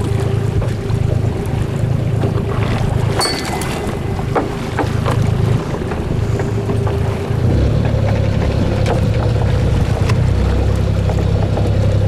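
Fishing boat's engine running steadily at sea. A little past halfway the engine note shifts higher and grows louder. A few sharp knocks sound in the first half.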